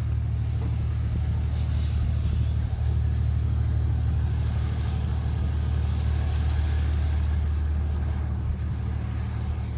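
Steady low hum of a large engine running at constant speed, an even drone with no rise or fall.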